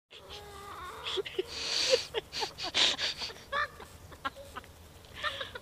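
Chickens clucking and calling in many short, quick notes, busiest in the first few seconds and thinning out toward the end.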